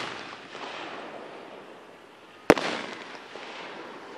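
Aerial firework shell bursting with one sharp bang about two and a half seconds in, its report echoing and fading away. The fading echo of an earlier burst trails off at the start.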